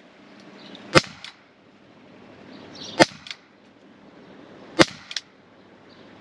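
LTL Alpha Bravo CO2-powered .50 calibre defence pistol fired three times, about two seconds apart, each a sharp crack. Each shot is followed a moment later by a much fainter click.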